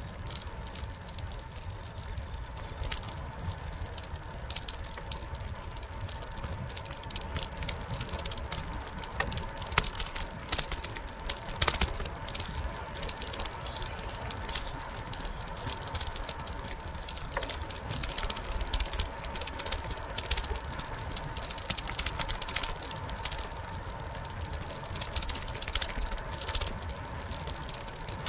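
Bicycle rolling along a concrete path: a steady low rumble from the tyres with frequent small rattles and clicks, under a faint steady whine. A couple of sharper knocks come about ten and twelve seconds in.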